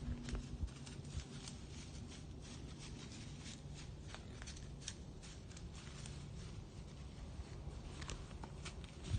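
Faint rustling with many small scattered clicks and ticks, over a faint low steady hum.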